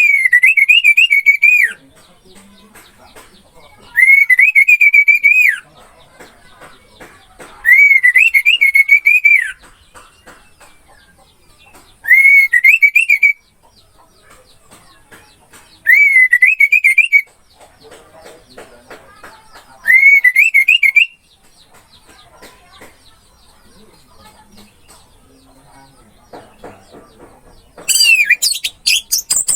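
Orange-headed thrush (anis merah) singing: six short, warbling whistled phrases, each about a second and a half long and about four seconds apart, then a louder, busier burst of notes near the end.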